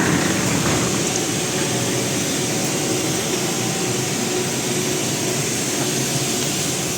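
Steady rushing noise of a parked jet airliner, even and unbroken throughout.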